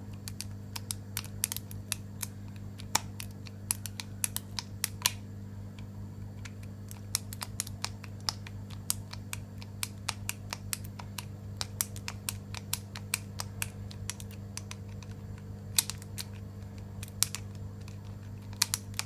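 Irregular small metallic clicks and ticks of a 7-pin tubular lock pick being turned and worked in a tubular disc lock, its feeler pins shifting. A steady low hum runs beneath.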